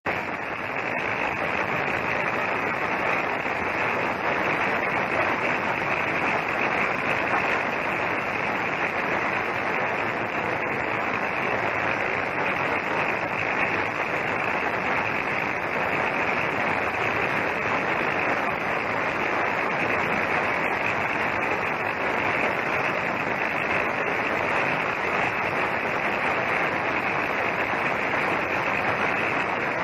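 Ultrasonic vial washing machine running: a steady, even rushing noise with no rhythm or pitch.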